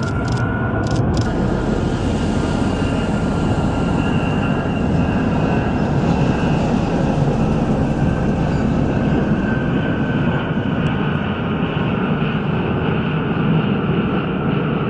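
Xian Y-20 four-engine military transport on landing approach, gear and flaps down: its turbofans make a steady, loud jet roar with a faint high whine over it.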